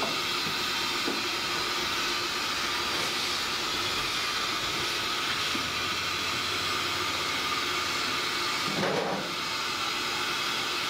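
Steady hiss of steam escaping from a dumpling steamer.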